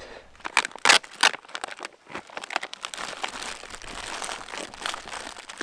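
Plastic food packaging crinkling and rustling as it is handled and unwrapped, with a few sharper crackles in the first second and a half.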